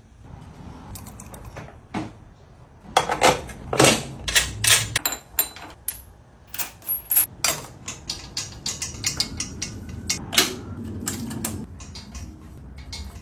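Motorcycle chain and sprocket parts being worked by hand: a run of irregular metallic clicks and clanks, loudest from about three to five seconds in.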